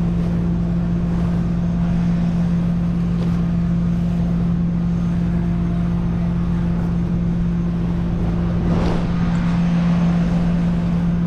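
Flatbed tow truck engine idling with a steady low hum. A brief rustle comes about nine seconds in.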